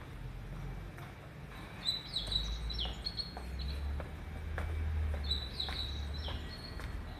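Birds chirping in two bursts of short, high, falling calls, over faint footsteps on concrete stairs and a low rumble.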